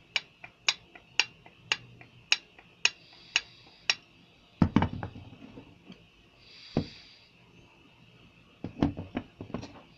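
Water pump on a Great Wall Safe Deer's 491QE engine knocking: sharp metallic clicks about twice a second, then a few louder, irregular knocks about halfway through and again near the end. The knock is easily mistaken for timing-chain or piston knock.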